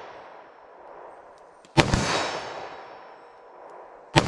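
Two gunshots from a Ruger LCR revolver in .327 Federal Magnum with a 1.875-inch barrel, firing 95-grain Underwood Xtreme Defender rounds. They come about two and a half seconds apart, the second near the end, and each shot dies away over about a second and a half.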